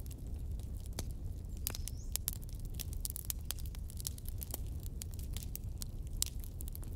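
Hot oil in a wok crackling and popping irregularly as small seeds fry in it, over a steady low hum.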